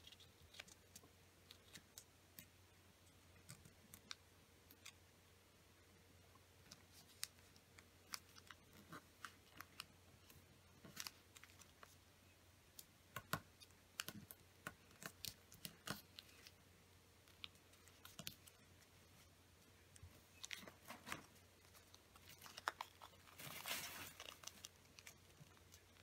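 Origami paper being folded and creased by hand: faint scattered crisp ticks and rustles, with a longer stretch of crinkling about two seconds before the end.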